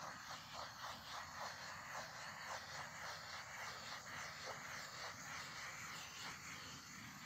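Small handheld butane torch hissing steadily as its flame is passed over wet poured acrylic paint, with faint ticks every so often.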